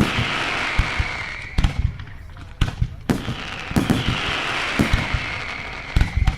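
Fireworks going off in rapid volleys of sharp bangs. Twice, a loud hissing whistle slides down in pitch over a couple of seconds.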